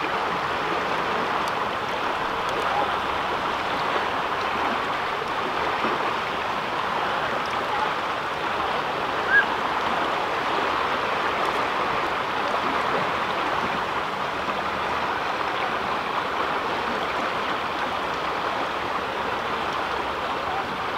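River water rushing steadily over rocks, with one brief high chirp about nine seconds in.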